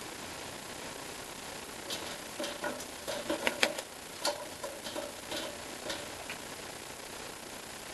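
Young carrion crow dipping its beak in a stainless steel bowl of water: a run of small splashes and sharp taps of beak on metal, thickest in the middle, over a steady background hiss.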